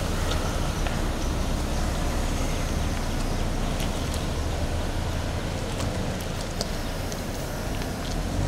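Land Rover Defender SUV pulling away and driving off, a steady low rumble of engine and road noise.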